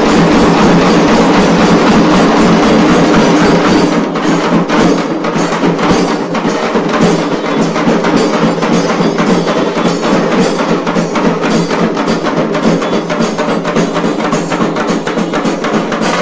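A dhol-tasa band drumming: many large barrel-shaped dhols beaten with sticks together with the sharp cracks of small tasa drums, in a loud, fast, dense rhythm. The drumming drops a little in level from about four seconds in.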